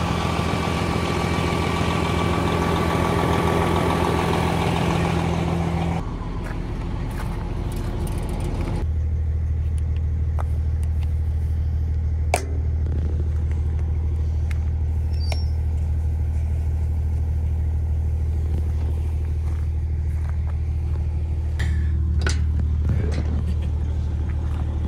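Truck engine idling steadily after being started, its low hum shifting abruptly a couple of times, with a few sharp clicks over it.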